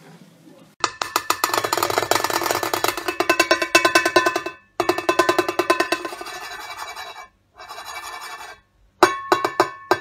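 Sulphur-crested cockatoo pecking a cymbal with its beak: long runs of fast metallic taps, broken by short pauses. Near the end come a few separate, harder strikes that leave the cymbal ringing.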